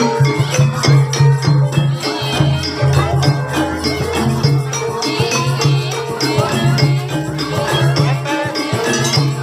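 Live Javanese gamelan music accompanying an ebeg hobby-horse dance: low sustained gong-like tones repeating in long phrases under dense percussion and jingling rattles.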